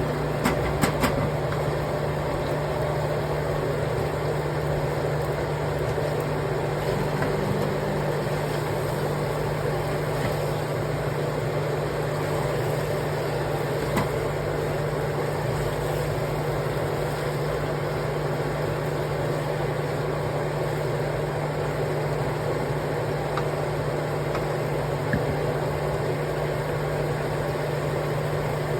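A steady mechanical hum with an even hiss over it, with a few light clicks about a second in and a single click around halfway.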